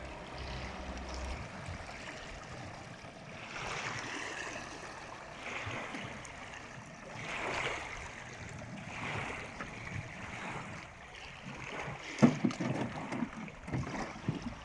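Water sloshing and lapping against a small boat's hull in swells that rise and fall every second or two. A low steady hum stops about a second in, and several loud knocks come near the end.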